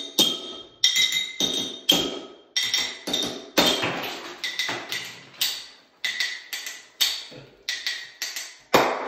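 Butter knives striking the necks of glass soda bottles: a fast, uneven series of sharp clinks with a ringing tone, about two a second. The blades are being driven up the bottle to snap the top off.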